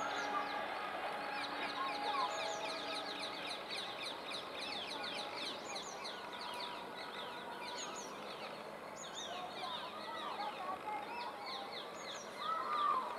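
Many birds chirping, with quick downward-sliding calls repeated over and over. A faint steady hum, which fades out in the first few seconds, lies under them.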